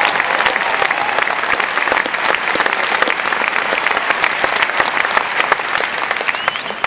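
Audience applauding: many hands clapping in a dense, steady spread that dies down near the end.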